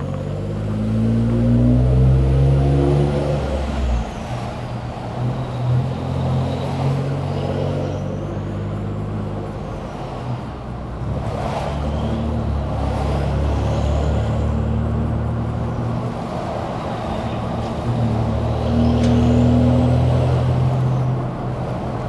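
Ford Expedition's exhaust running while driving, fitted with an SPD Performance turbo whistle tip that adds a faint high whistle rising and falling in pitch about four times over the engine's low drone.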